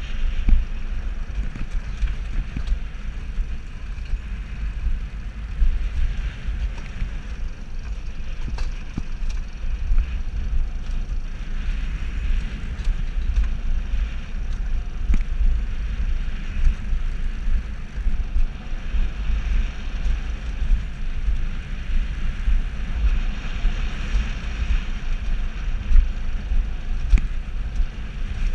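Alpine coaster sled running fast down its steel rails: a steady, uneven low rumble from the wheels on the track mixed with wind buffeting the microphone, with occasional clicks.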